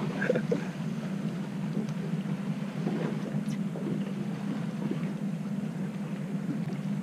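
Fishing boat's engine running with a steady low hum.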